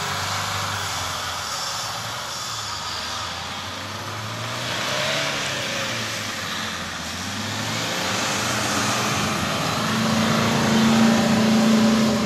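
SUV engines revving under load as the vehicles drive through deep sand, their pitch rising and falling. A strong, steady high-revving note and the loudest part come near the end.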